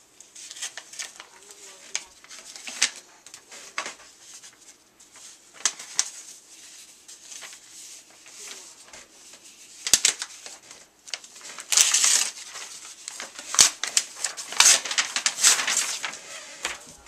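Mail packaging being handled and opened by hand: irregular rustling and crinkling of wrapping, louder in the second half, with a few sharp knocks.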